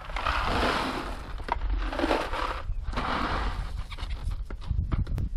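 Loose gravel pouring out of a tipped bucket and rattling down through a crawl-space vent, in two runs of a second or two each.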